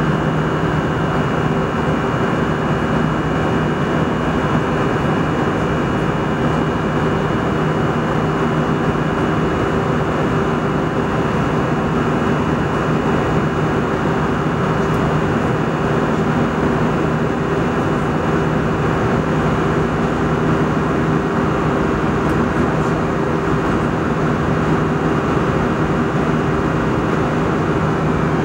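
Steady in-cabin noise of an Airbus A320 airliner in cruise: a constant rush of airflow and engine noise with a steady low hum and a few faint held tones.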